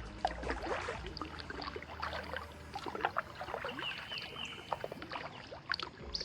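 Kayak paddling on calm swamp water: paddle blades dipping and dripping, with small knocks and splashes throughout. A bird gives a short run of high chirps about three and a half seconds in.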